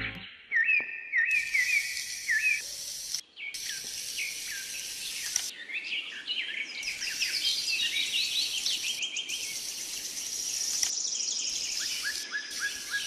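Small birds chirping and twittering in quick, repeated calls, over a high hiss that cuts in and out abruptly several times.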